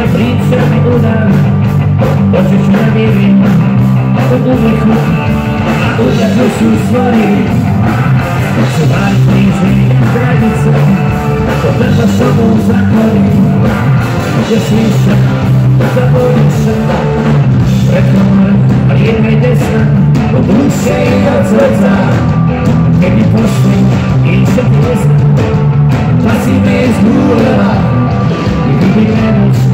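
Live rock band playing loudly: electric guitar, bass guitar, drums and keyboards under a male lead vocal.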